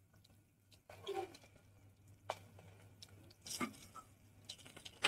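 Faint scraping and clicking of a spoon stirring raw potato slices in oil inside a pressure cooker, with a few separate knocks over a steady low hum.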